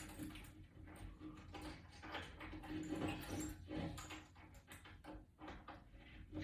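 Faint handling noise: scattered light clicks and rustles of small mounting screws and hardware being fitted by hand.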